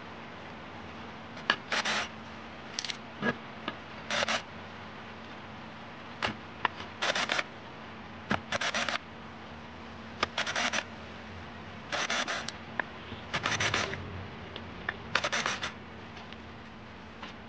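Cordless drill-driver running in short bursts to turn the screws on an amplifier board's transistor heatsink: about ten brief whirs, each half a second or less, with small clicks between them.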